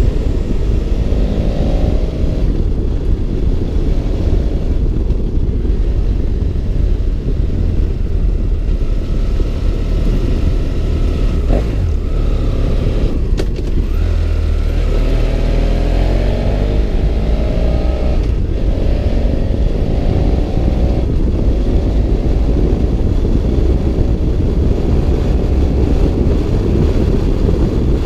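BMW F650 GS Twin's parallel-twin engine running under way, its pitch rising and falling several times with throttle and gear changes, over a steady low rumble.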